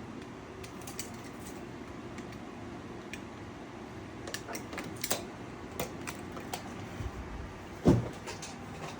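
Drywall patch work: scattered light knocks and clicks, with one loud thump near the end.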